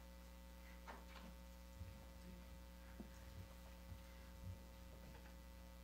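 Near silence: room tone with a steady low electrical hum, and a few faint soft knocks and rustles in the middle.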